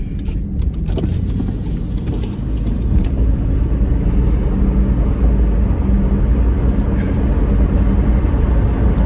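Car interior while driving: steady low engine and road rumble, growing louder over the first few seconds as the car picks up speed, then holding steady.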